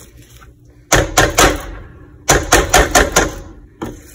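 A wire potato masher knocking against a metal cooking pot as potatoes are mashed: two quick runs of sharp knocks, one about a second in and a longer one about two seconds in.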